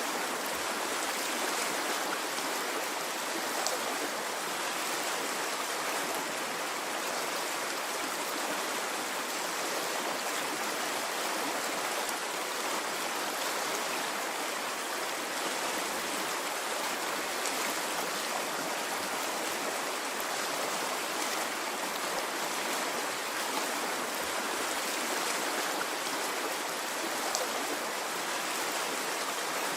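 Stream of water flowing and rushing steadily, an even, unbroken babble with no rise and fall of waves.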